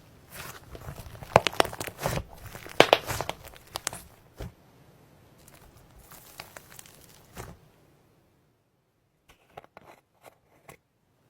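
Slime being squeezed and worked, giving dense crackling and popping for the first four seconds or so, then softer crackles, a short silence and a few scattered pops near the end.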